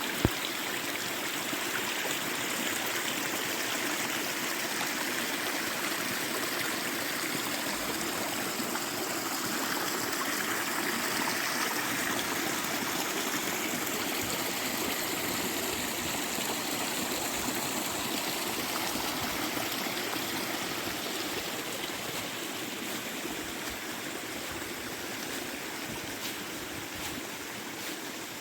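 A stream flowing steadily, an even rush of water, with one brief click right at the start.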